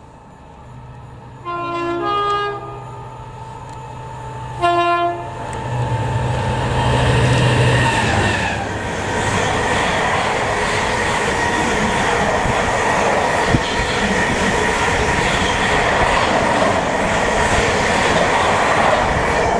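A freight locomotive sounds a two-note horn about a second and a half in, then a shorter blast, as it approaches and passes at speed. A long train of container wagons follows, with a steady rolling noise of wheels on rail.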